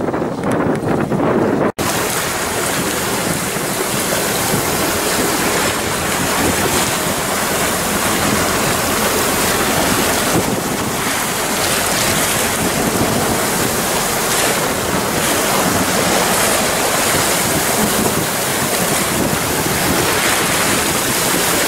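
Wind buffeting the microphone over the steady rush of sea waves, heard from a boat at sea. A sudden edit cut about two seconds in changes the sound from a lower, duller rumble to this brighter, even rushing noise.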